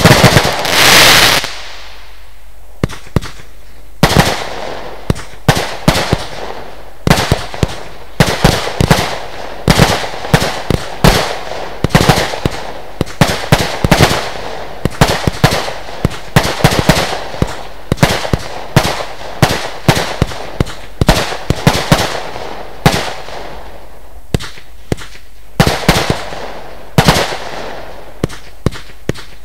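Lesli Dezemberfest 512-shot compound fireworks cake firing a rapid, steady string of shots, about two sharp reports a second. A loud hissing crackle fills the first second or so.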